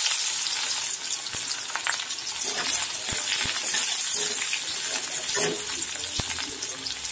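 Sliced onions sizzling as they fry in hot oil in a metal kadai, a steady high hiss, with a few clicks of the spatula against the pan as they are stirred.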